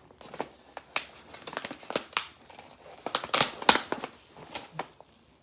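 Paper packaging crinkling and tearing as a red paper covering is unwrapped by hand, a quick run of crackles with the loudest a little past three seconds in.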